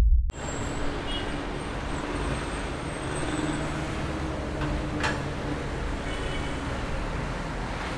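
Steady, distant rumble of city traffic.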